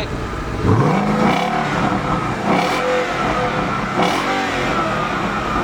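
2015 Ford Mustang GT's 5.0 V8 revved through a Corsa Xtreme exhaust, loud, with about four throttle blips that each rise and fall in pitch.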